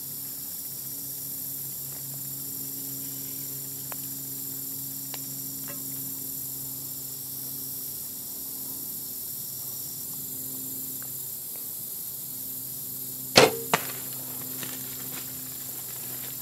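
Bow shot at a deer: a sharp, loud crack as the bowstring is released, then a second, smaller smack under half a second later as the arrow strikes the deer at about 20 yards.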